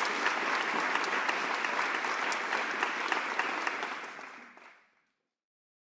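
Audience applauding, fading out about four and a half seconds in.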